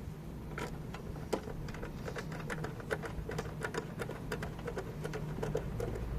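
Screws being driven by hand into the 3D printer: a run of small, irregular metal clicks and ticks from the screwdriver and screw, a few a second, over a steady low hum.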